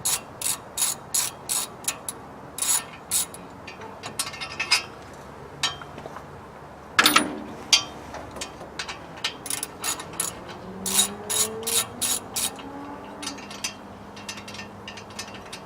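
Hand ratchet wrench clicking in short runs of strokes as bolts are backed out, with a single louder metallic clank about seven seconds in.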